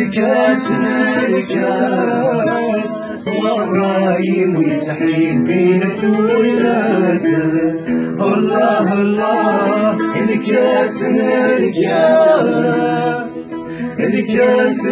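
A woman and a man singing together to a plucked lute, followed by a man singing solo.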